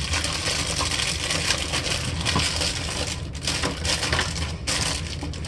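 Small hard parts rattling and clattering as someone rummages through a container of them, with two brief pauses about three and four and a half seconds in.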